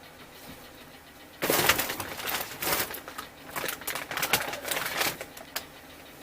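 Rapid, irregular clicking and clattering of parts and tools being handled, starting about a second and a half in and lasting about four seconds.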